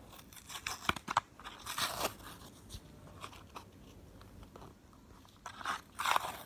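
Toy car packaging being opened by hand: crinkling, crunching and tearing of plastic and card in short bursts with small clicks, the loudest burst near the end.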